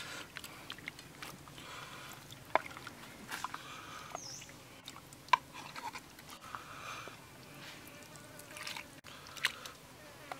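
Wooden ladle scooping chicken soup out of a pot and into a coconut-shell bowl: wet slopping of broth and a few sharp knocks of the ladle against the pot and shell, the loudest about halfway through.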